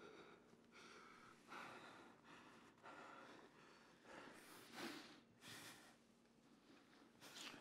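Faint breathing of two people kissing, with a few breathy gasps through the nose and mouth a couple of seconds apart.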